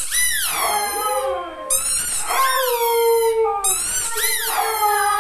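Siberian husky howling in a run of rising-and-falling 'a-woo' calls, about one a second without a break.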